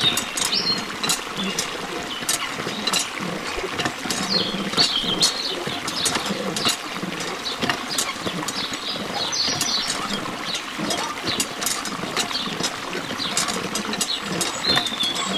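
A thin stream of water from a miniature hand pump pouring and splashing into a small water tank, a steady splashing with scattered drip-like clicks. Short high chirps come and go, about four times.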